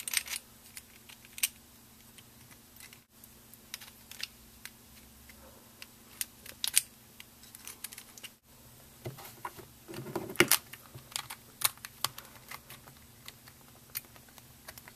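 Plastic pieces of a Meffert's Venus cube, a 3x3 puzzle cube with a ball core, clicking and snapping into place as the puzzle is reassembled by hand: irregular sharp clicks, a few louder ones about ten seconds in.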